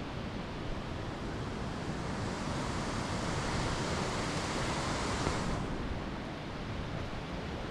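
Rushing water of a jungle waterfall cascading between pools, a steady hiss that grows fuller and brighter for a few seconds in the middle and eases off about five and a half seconds in.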